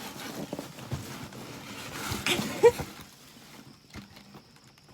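Packaging and tissue paper rustling, with light knocks and taps, as an item is lifted out of a cardboard box; the handling quiets after about three seconds.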